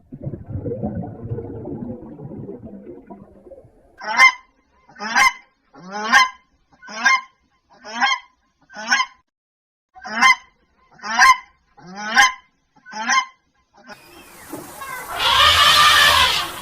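A goose calling: ten short, loud, evenly spaced calls about once a second. They are preceded by a low, rough animal sound and followed near the end by a louder, different sound.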